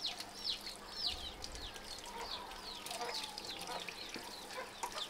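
Chicks peeping: a steady run of short, high calls that fall in pitch, about three a second, with tap water running faintly underneath.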